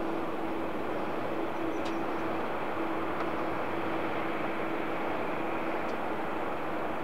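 Boeing 787-8 airliner's jet engines running steadily at low power, an even roar with a steady low hum.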